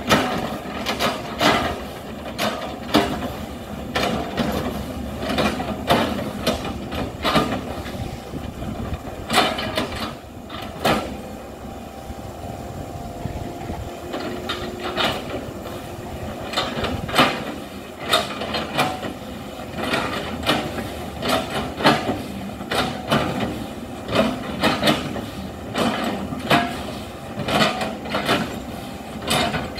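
Hitachi excavator at work: its diesel engine running steadily under irregular sharp clanks and knocks, several a second at times, with a calmer stretch about halfway through.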